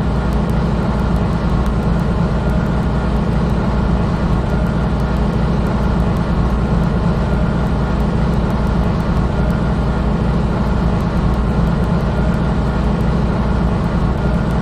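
Jet airliner in flight: a steady, loud rumble of engine and air noise, heaviest in the low end, with no change in power.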